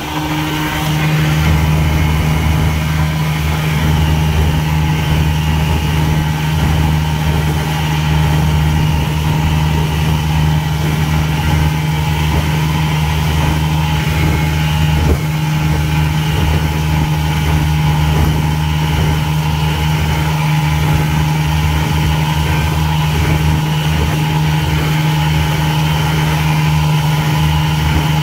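1968 Evinrude 18 hp two-cylinder two-stroke outboard running steadily under way at a constant speed, its freshly rebuilt gearcase driving the boat. The pitch holds steady throughout.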